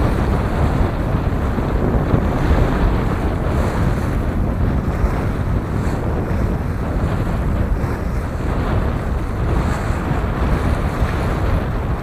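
Strong gusty wind buffeting the microphone, with water rushing along the hull of a sailing yacht under way in strong gusts. It is a steady, heavy rumble with no distinct events.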